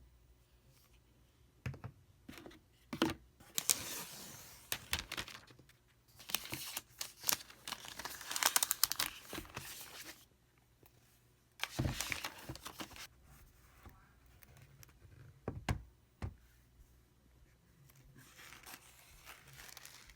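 Packaging being torn and handled: irregular bursts of tearing and crinkling with a few sharp clicks, loudest in the middle of the stretch.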